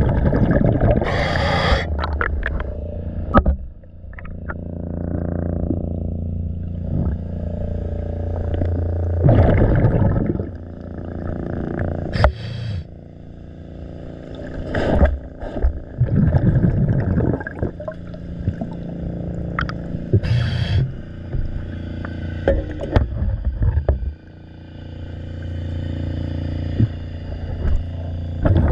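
Underwater sound of a diver's breathing regulator: long moaning inhalations and short bursts of exhaled bubbles every few seconds, over a steady low hum, with occasional scrapes against the boat hull.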